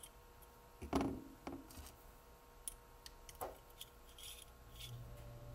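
Small plastic and metal parts of a scale model V8 engine being handled and set down on a workbench: a few light clicks and knocks, the loudest about a second in. A low steady hum comes in near the end.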